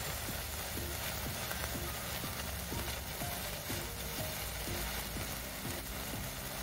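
A handheld sparkler firework fizzing and crackling steadily as it throws sparks. Background music with a regular beat of short low notes runs under it.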